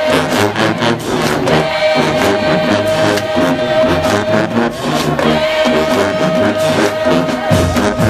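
Marching band playing a stand tune: brass and sousaphones over a steady drum beat, with a long high note held through most of it.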